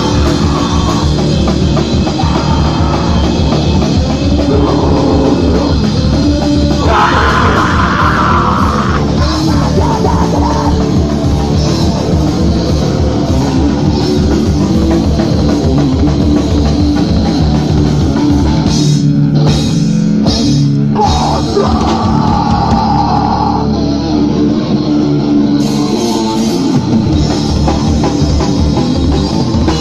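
A band playing loud heavy rock live, with distorted electric guitar and drum kit, with a few short stops in the music about two-thirds of the way through.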